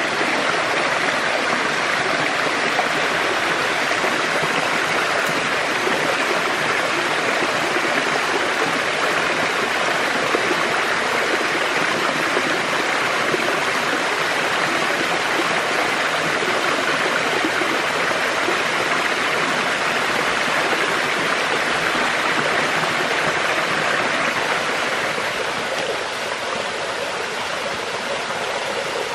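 Small waterfall of a rocky forest stream, water pouring and splashing down over a rock slab in a steady rush that softens slightly near the end.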